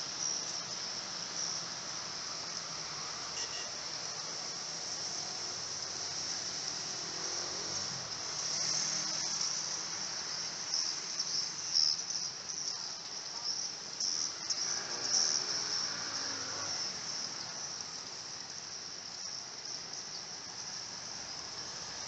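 A large flock of edible-nest swiftlets twittering together in a dense, high-pitched chatter that never lets up.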